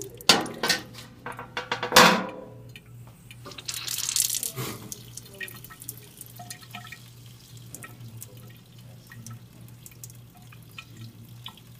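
A few sharp knocks from a metal baking sheet being handled in the first two seconds. Then water pours and splashes down the tilted sheet for a second or two, followed by faint drips.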